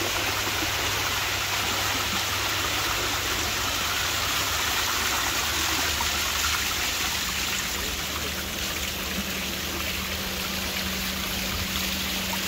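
Staircase waterfall: water cascading down stone steps, running and splashing steadily.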